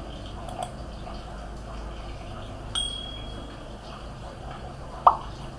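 Two sharp metallic taps over a steady low hum. The first, a little under three seconds in, rings briefly with a high, chime-like tone. The second, near the end, is the louder of the two.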